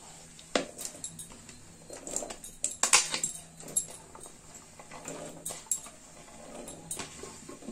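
Chopped vegetables tipped from a plate into an open aluminium pressure cooker holding dal and water: irregular knocks and clatter as the pieces hit the pot and drop into the liquid, with the plate rubbing on the rim. The loudest clatter comes about three seconds in.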